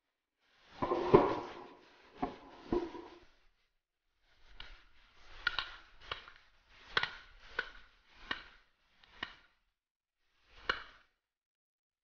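Shotgun shots from several guns, about a dozen sharp reports at uneven intervals, each with a short echoing tail.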